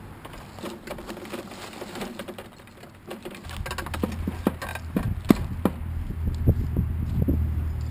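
Large drain cleaning machine: scattered clicks and knocks, then about three and a half seconds in its motor starts and runs with a steady low hum, with irregular sharp clanks over it.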